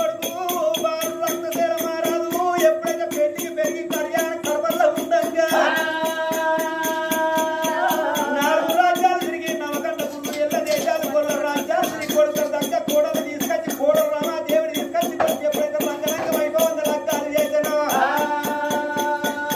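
Instrumental oggu katha folk music without singing: a melody of held notes over a steady drone, with a fast, continuous rattling rhythm throughout.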